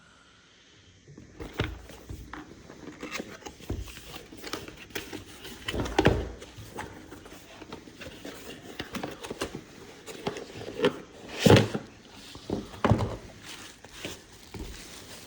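Packaging being handled as a selfie stick is unboxed: irregular rustling, scraping and clicking, with louder thunks about six and eleven seconds in.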